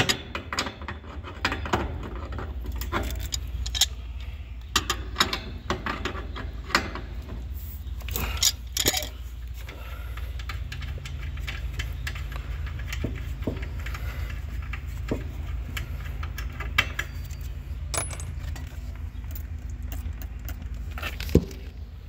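Metal clinks and clicks of channel-lock pliers working a brass suction service valve on an air-conditioner condenser, as the valve is turned to stop a slow refrigerant leak. The clicks come thickest in the first half, then only now and then, over a steady low hum.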